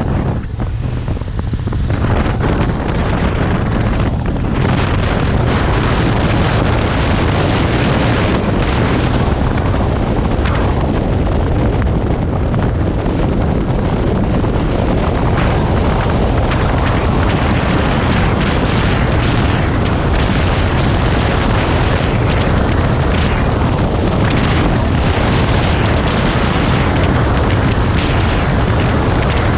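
Wind rushing and buffeting over the microphone of a camera on a moving motorcycle, with the bike's engine and tyre noise under it. It grows louder over the first couple of seconds, then holds steady.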